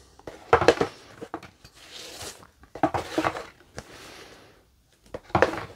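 Cardboard punchboard sheets from a board game being handled: irregular rustling and sliding of cardboard with a few light knocks.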